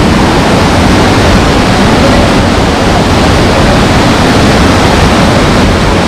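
Waterfall plunging into its pool, with water rushing between boulders close by: a loud, steady roar of water.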